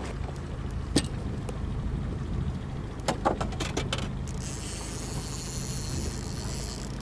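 Boat's outboard motor idling with a steady low hum, with a sharp knock about a second in and a few more knocks around three seconds in. A high hiss joins from about four seconds in.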